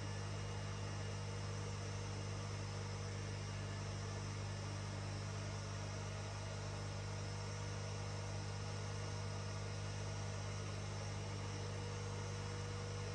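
Neakasa P0 Pro pet grooming vacuum running on its medium suction setting: a steady motor hum with a whine held at one pitch.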